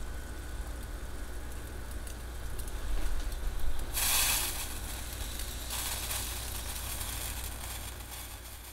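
Bialetti Moka Express stovetop moka pot brewing: coffee gurgling and crackling up out of the central column, with two louder bursts of hissing sputter about four and six seconds in. The spurting hiss is the late stage of extraction, when steam starts pushing through with the coffee.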